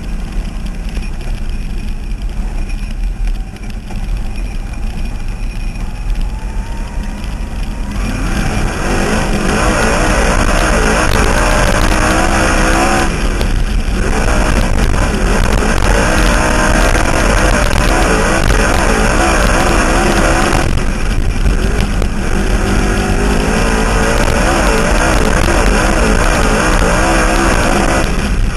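Dirt-track race car engine running at speed, picked up by a camera mounted at the back of the car. About eight seconds in, much louder rock music comes in over it and plays on, with two short breaks.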